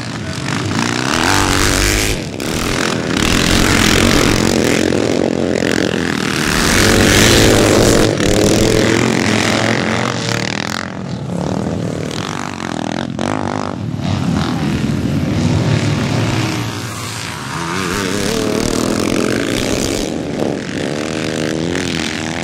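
Vintage motocross motorcycle engines racing, revving up and down through the gears as bikes pass, swelling louder and fading again.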